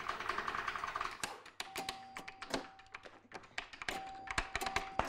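Speakeasy pinball machine being played: a rapid, irregular run of clicks and clacks from the flipper buttons and flippers, thickest and loudest in the last second or so.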